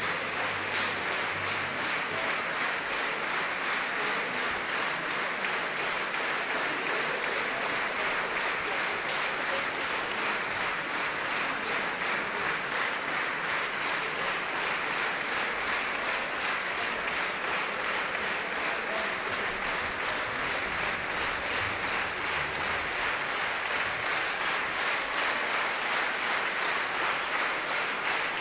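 Steady applause from a full concert-hall audience, with the orchestra players clapping too, after a concerto performance.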